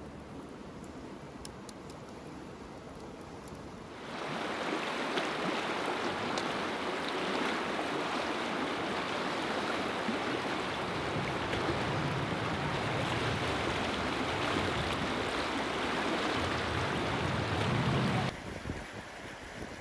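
A log burning in a fire ring, quiet with a few faint crackles, then a sudden change to the loud, steady rush of a fast river running past a rocky bank, with wind buffeting the microphone. The rush drops back abruptly near the end.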